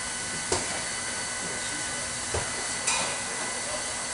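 Hand roller being worked over a freshly glued RV roof membrane: a few light knocks and taps over a steady hiss.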